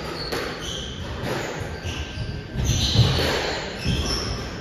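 Squash rally: the ball knocked by rackets and hitting the court walls several times, the loudest hits about three seconds in, with short squeaks of shoes on the court floor in between.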